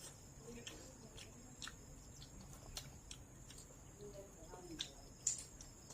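A person eating close to the microphone: scattered soft smacking clicks of chewing, a few a second, over quiet room tone.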